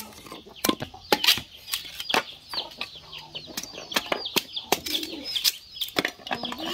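Machete blade cutting into and splitting a green bamboo stalk: sharp knocks and cracks at an uneven pace, about two a second. Short high bird chirps run underneath.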